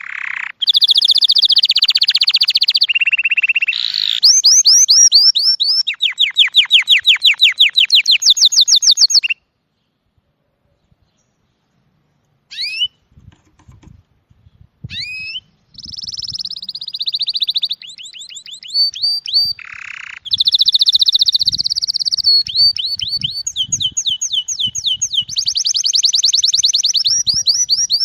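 A songbird singing loud, high-pitched rapid trills and sweeping notes, breaking off for a few seconds about a third of the way in before starting again.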